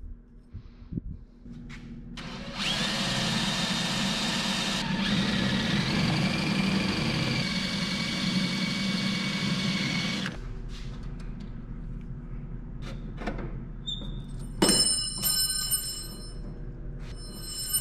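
Hand-held power drill running for about eight seconds, drilling a divot into a stainless steel steering shaft for a universal joint's set screw. Its pitch steps down a couple of times as the bit loads. Near the end come two short bright metallic rings.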